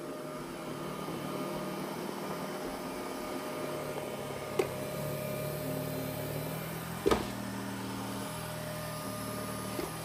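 Xiaomi Robot Vacuum S10T running in its intensive suction mode: a steady motor and fan hum with a faint held tone in it. There are two brief knocks, one about halfway through and one about two and a half seconds later.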